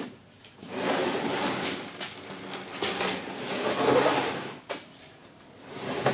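A heavy 2013 Chevy Volt battery module stack being turned around on a wooden workbench: its plastic cell frames scrape and knock against the wood for about four seconds, then it goes quieter.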